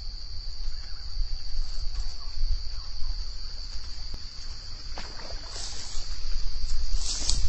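Insects keep up a steady high-pitched buzz over a low wind rumble. There are a couple of brief splashes at the fishing lure, the loudest near the end.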